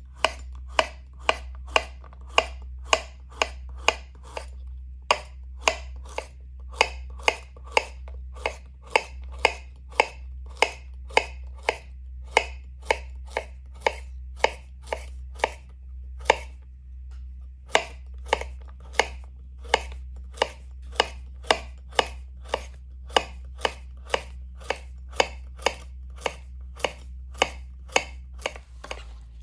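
Knife slicing a cucumber into thin rounds on a bamboo cutting board: the blade chops through and taps the wood in a steady rhythm of about two strokes a second, with a short pause about halfway through.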